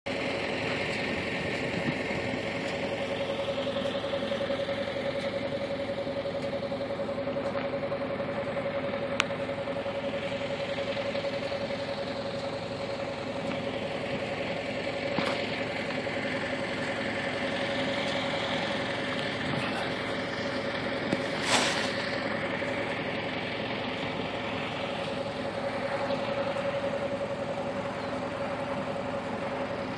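Vehicle engine running with a steady, constant hum, and a few short clicks or knocks along the way, the loudest about two thirds of the way through.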